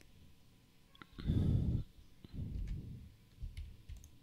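A few soft computer mouse clicks, with a breathy rush on the microphone about a second in and a softer one just after.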